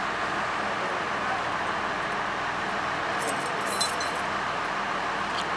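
Diesel engine of an NS 'Blauwe Engel' railcar idling steadily, with a few light metallic clinks about three to four seconds in.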